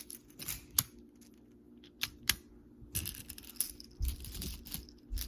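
Magnetic building toy pieces clicking and clacking as they are handled and snapped together: a scatter of sharp clicks, a few soft knocks, busier in the second half.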